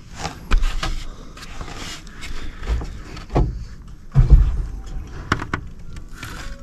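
Irregular knocks, clicks and rustling as a chalk line is handled at a screw on metal roof sheets, with a few deep low thumps; the loudest comes about four seconds in.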